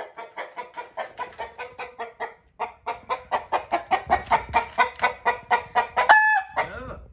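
An upset rooster clucking rapidly and without let-up, about four clucks a second, then giving one louder, drawn-out squawk about six seconds in.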